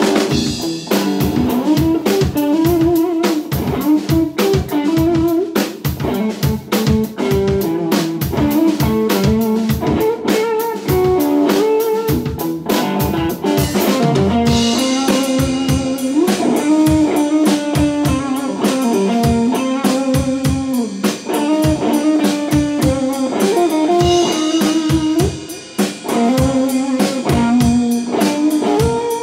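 Instrumental blues played live on electric guitar and drum kit: a guitar melody over a steady drum beat, with the cymbals growing busier about halfway through.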